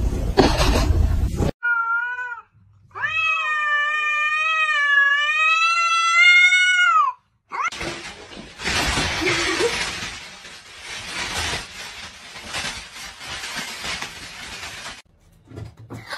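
A cat gives a short meow, then one long, drawn-out meow lasting about four seconds. Afterwards a thin plastic bag rustles and crinkles for about seven seconds.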